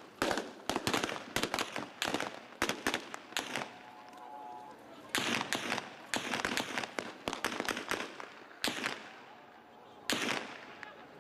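Bursts of automatic gunfire: rapid strings of sharp shots that echo, coming in several volleys with brief pauses, the longest a few seconds in and short ones near the end.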